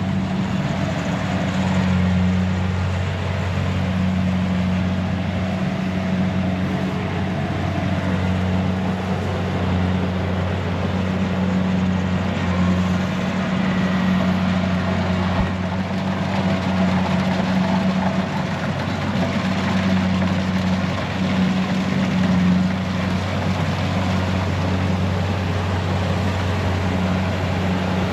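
Engine of a rice combine harvester running steadily, a constant low drone through the whole stretch.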